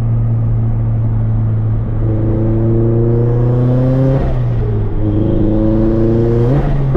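Turbocharged Scion FR-S flat-four engine through a Tomei 80R cat-back exhaust, running steadily at first, then accelerating. The pitch rises, drops at a gear change about four seconds in, rises again, then falls off near the end.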